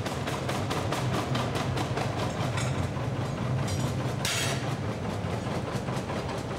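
Forging machine hammering the red-hot end of a large superheater flue tube: a fast, even clatter of blows over the machine's steady hum, with a short hiss about four seconds in.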